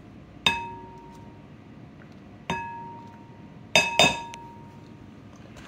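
A measuring cup and spatula knocked against the rim of a glass mixing bowl to get the mayonnaise out, four times: once, again a couple of seconds later, then twice in quick succession. The bowl rings clearly after each knock.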